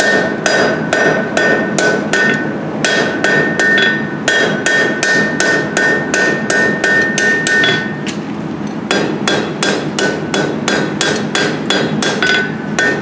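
Hand hammer striking red-hot steel on an anvil in a quick, steady run of blows, about three a second, with the anvil ringing between strikes and a short break about eight seconds in. The blows are rounding up the stubby tip of a pair of scrolling pliers' rein.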